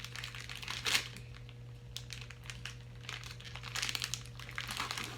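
Plastic snack-cake wrapper being crinkled and pulled open by hand: irregular crackling, with the sharpest crackle about a second in and another run of crinkling near the end.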